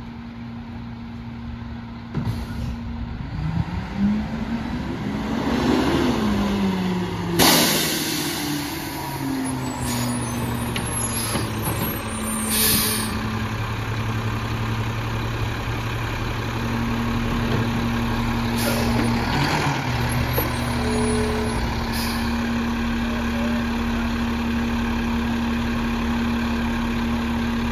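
Mack LEU McNeilus rear-loader garbage truck's engine running, revving up and back down a few seconds in, with a sharp air-brake hiss about seven seconds in. A few shorter hisses and knocks follow while the engine runs on steadily.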